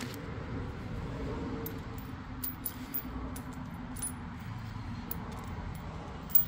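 Light metallic clinks and taps of flat steel washers and a steel pin being handled and set down on a concrete floor, a scatter of short clicks.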